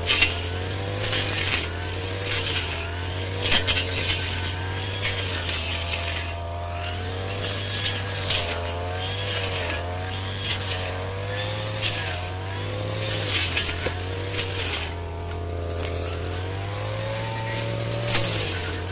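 Brush cutter engine running steadily, its pitch wavering up and down as it takes load while cutting through weeds and shrubs, with frequent short sharp hits of the blade on stems.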